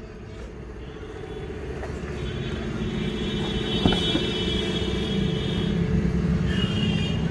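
Road traffic rumble growing louder as a heavy vehicle approaches, with a faint high whine over it in the middle. A single sharp click about four seconds in.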